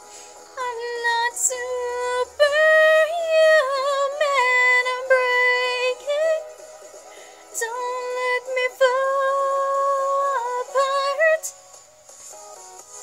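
A young woman singing a wordless, held melody with slides and a wavering vibrato, stopping near the end.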